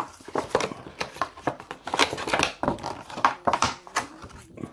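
Small cardboard earbud box being worked open by hand: a quick, irregular run of scrapes, clicks and rustles of card and tape.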